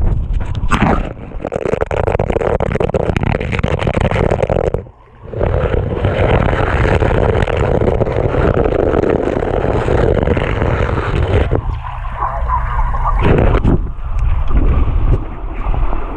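Underwater rush of water and bubbles heard through a GoPro's waterproof housing below a swimming pool's surface, as swimmers move and kick around it; it drops away briefly about five seconds in.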